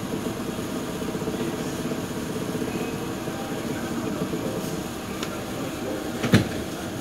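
Steady mechanical hum and rumble inside a TTC streetcar, with a single sharp knock about six seconds in.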